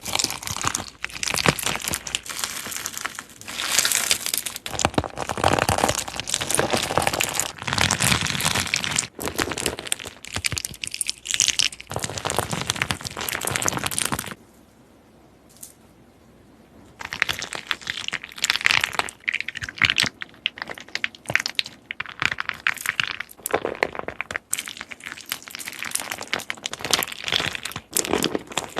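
Slime being squeezed and worked by hand, making dense crackling and clicking pops. It pauses for about two or three seconds midway, then starts again.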